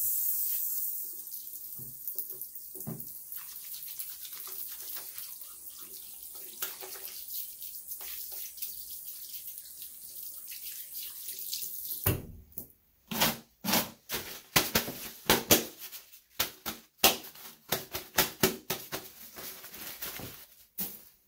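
Bathroom sink faucet running, water splashing over hands and into the basin for about twelve seconds, then shutting off. After that comes a string of short, sharp crackling rustles as the hands are dried.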